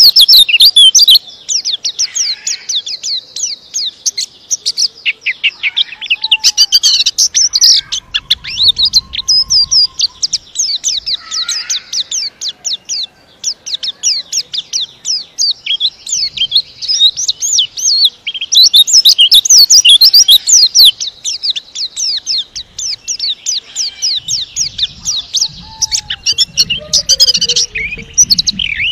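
Caged white-eye (pleci) singing a long, fast, tightly packed song of rapid high chirps and twitters, almost without pause.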